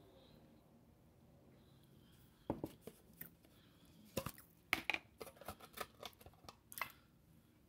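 Cornstarch canister being opened: an irregular run of sharp clicks and crackles as the plastic container is handled and its foil seal is peeled back.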